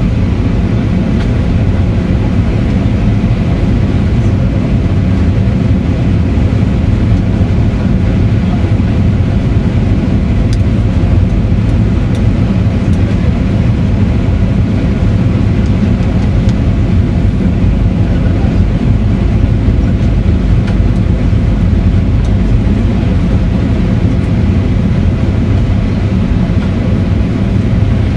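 Steady cabin noise of an Airbus A320-family jet airliner descending on approach: engine drone and rushing airflow heard from a window seat inside the cabin.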